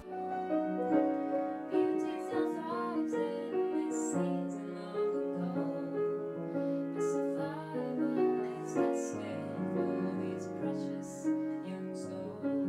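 Piano music with a woman singing, a continuous run of notes.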